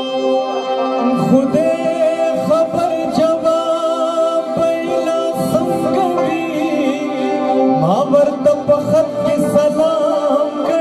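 Live Pashto folk song: a man singing with harmonium accompaniment. The harmonium holds steady chords, and the voice and tabla drum strokes come in about a second in.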